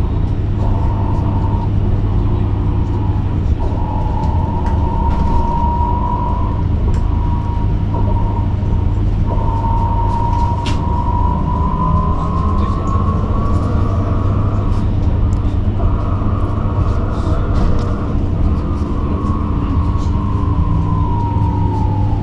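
Electric bus traction motor whining, its pitch rising and falling with the bus's speed and sliding down near the end as the bus slows, over a steady low hum and rolling rumble.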